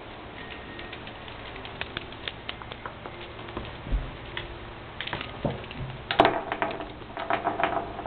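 Light, irregular clicks and taps from kittens playing with a dangled cat toy, sparse at first and busier and louder in the second half, with a couple of dull thumps.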